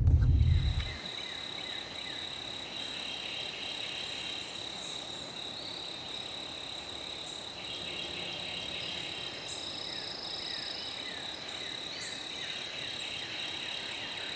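A truck cab's low rumble cuts off about a second in, giving way to spring woodland ambience at dawn: a steady high-pitched trill with recurring buzzy choruses and many short falling chirps of calling insects, frogs and birds.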